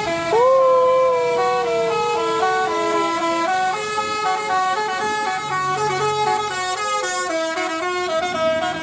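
Indonesian bus 'telolet' Basuri multi-tone musical horn playing a quick melody of short stepped notes. A second long held horn tone swoops up at the start, sounds under the melody for about the first three seconds and then fades.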